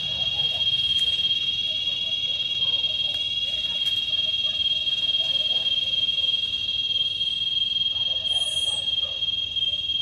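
A calling insect, most like a cicada, giving a loud, steady, high-pitched buzz that holds one pitch without a break.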